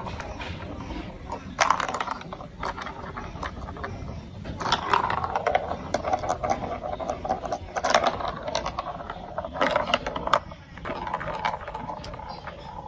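Hard plastic marble-run building-set pieces clicking, scraping and rattling against each other, with a few sharper knocks and stretches of denser clatter.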